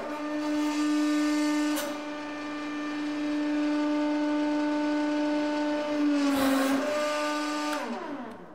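Hollow toy goose squashed by a hydraulic press, air forced out through its squeaker in one long honking tone. About six seconds in the tone dips under a short burst of hiss, then falls in pitch and dies away near the end.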